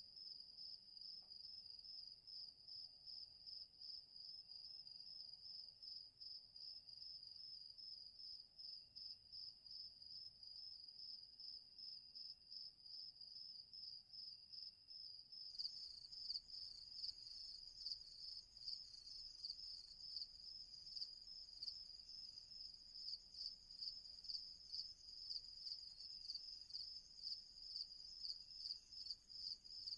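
Crickets chirping in a steady, high-pitched pulsing trill. About halfway through the chirping grows louder and fuller.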